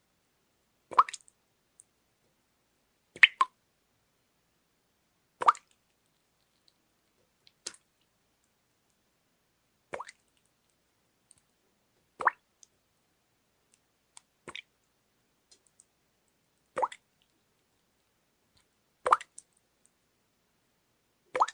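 Water dripping into water, single plopping drops falling one at a time about every two seconds in an even rhythm, with silence between them.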